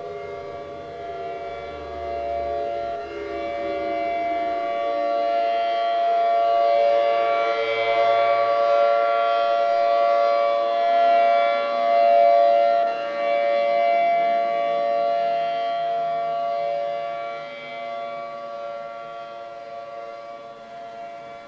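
ACA P50 outdoor warning siren sounding a steady chord of several tones. Some lower tones slide down in pitch at first. It grows much louder toward the middle, then fades toward the end.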